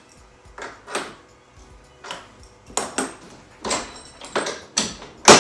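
Metal clinks and scrapes of a wrench tightening the small lock nuts on an aluminum hood catch: a string of short, uneven clicks, one or two a second, with the sharpest and loudest clink near the end.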